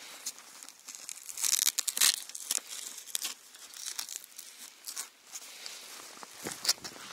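Straps and fabric of a camouflage backpack rustling and scraping as hands fasten fishing rods onto it. The sound is irregular, with two louder scrapes about one and a half and two seconds in.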